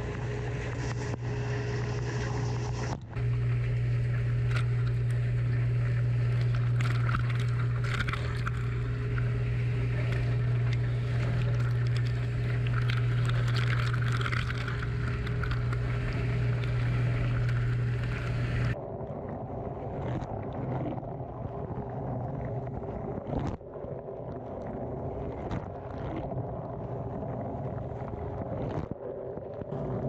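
Running dishwasher heard from inside the tub through a waterproof camera housing: a steady low hum from the wash pump under the hiss and splash of spraying water. About two-thirds of the way in the sound turns duller, with scattered sharp ticks of water striking the housing.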